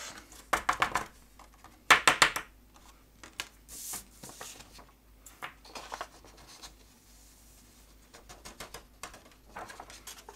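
Paper handling as loose gold embossing powder is knocked off a card onto a folded scrap sheet: short bursts of quick light taps and paper rustles, the loudest about two seconds in, with a brief sliding hiss of powder near four seconds.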